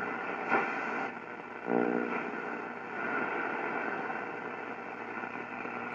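Shortwave static and hiss from a Zenith Royal 1000 Trans-Oceanic transistor radio's speaker, with faint steady carrier tones as the receiver sits between stations. There is a brief buzz about two seconds in.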